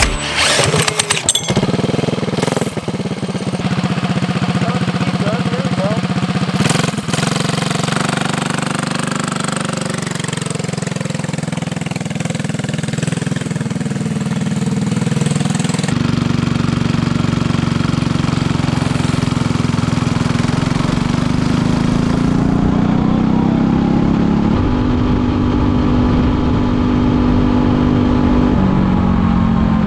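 Go-kart engine pull-started with a few quick yanks on the recoil cord, then running steadily. Later the engine is at full throttle, heard from on the kart, its pitch climbing as the kart accelerates on a top-speed run.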